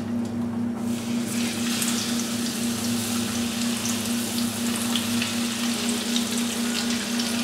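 Breaded trout fillet frying in hot oil in a frying pan: the sizzle starts about a second in as the fish goes into the oil and keeps up steadily with small crackles and pops. A steady low hum runs underneath.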